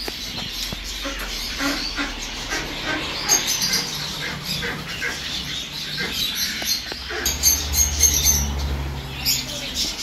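Many caged birds chirping and calling at once, a dense chatter of short high chirps. A low rumble comes in from about seven to nine seconds in.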